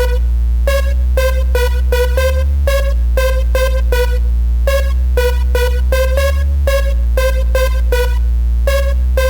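Instrumental hip-hop beat: a deep, sustained bass line under a fast, repeating synth melody of short notes. The bass briefly changes pitch every few seconds.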